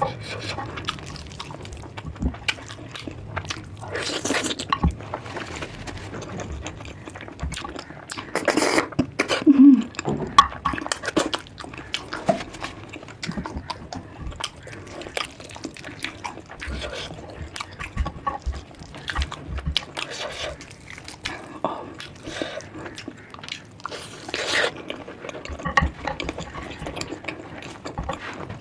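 Close-up eating sounds: wet chewing, lip smacks and squelches of someone eating curry with rice, with short clicks and a few louder bursts of slurping and smacking.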